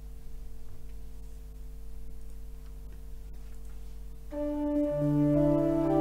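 Organ begins playing about four seconds in: sustained, steady chords that build in loudness, the introduction to the sung responsorial psalm. Before it enters there is only a faint steady hum.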